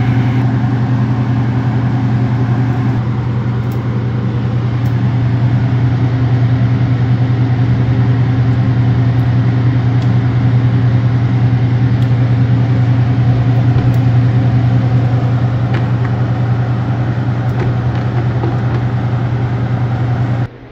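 Steady low motor hum with a few faint clicks over it, dropping away suddenly near the end.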